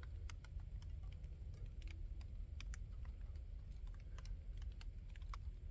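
Scattered light ticks and clicks at an irregular pace, several a second, over a low steady rumble.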